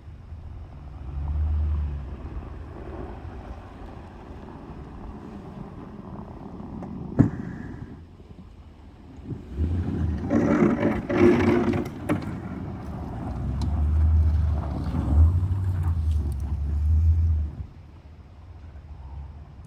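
Toyota Tundra pickup's engine running while it plows snow, rising and falling in several surges, with a single sharp knock about seven seconds in.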